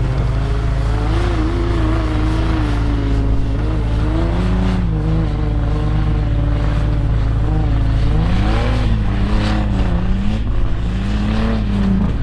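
A four-wheel-drive truck engine revving, its pitch rising and falling several times, over a steady low engine hum.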